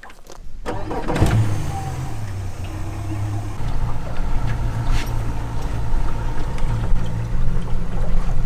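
A 65 hp four-stroke jet outboard on a flat-bottom river boat running underway with a steady, smooth low drone, held at low revs under 2,000 RPM for its break-in. It comes in about a second in, with a knock just after.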